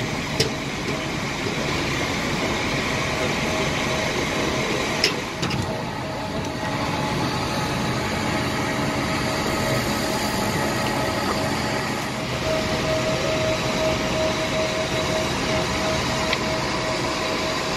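Steady cabin noise inside an Airbus A320, an even rushing hum with a faint steady tone through it. There is a short sharp click about half a second in and another about five seconds in.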